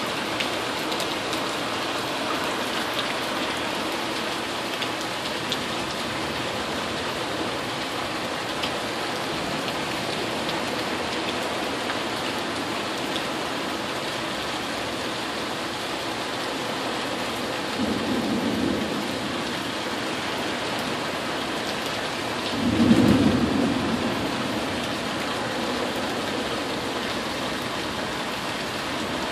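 Steady rain in a tropical storm, with two short, low rumbles of thunder past the middle; the second is the louder.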